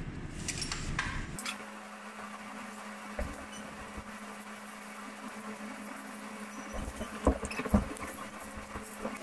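Loose metal coins clinking and rattling as a hand stirs and sorts them in a plastic coin tray, with a few louder clinks near the end, over a steady low hum.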